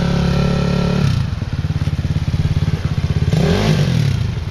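Dirt bike engine running steadily for about a second, then dropping to a slow, pulsing chug at low revs, with a short blip of the throttle up and back down a little past the middle.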